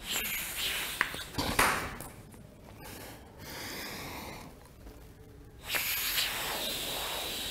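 Breath blown hard through a straw into a small cone, the airstream holding a light ball aloft above it: a hissing rush of air in several blows with pauses for breath, the longest and loudest near the end.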